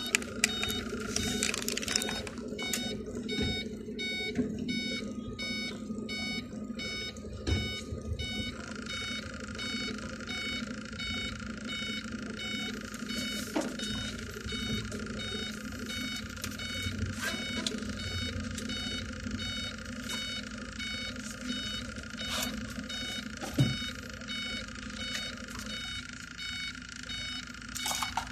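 Electronic beeping, short tones repeating in a steady pattern, over a low steady hum.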